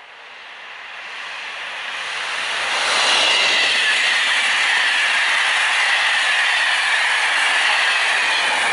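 Passenger train of Corail coaches pushed by an SNCF BB 7200R electric locomotive, passing at speed. The noise swells over the first few seconds as it approaches, then holds as a loud, steady rush of wheels on rail while the coaches go by. The locomotive passes near the end.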